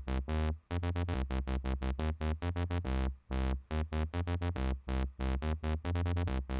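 Dubstep wobble bass from FL Studio's Harmor synth: a looped bass line whose filter cutoff is set by each note's velocity, so the wub pulses at changing rates. Deep, chopped synth stabs in a stuttering rhythm.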